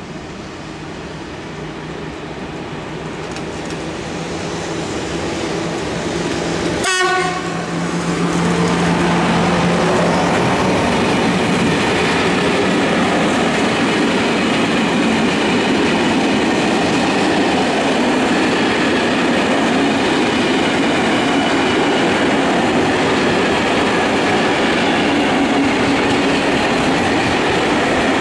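Electric locomotive hauling a container freight train approaches, its steady motor hum growing louder, and gives a short horn blast as it passes about seven seconds in. After that a long string of container wagons rolls by with a steady rumble and clack of wheels on rail joints.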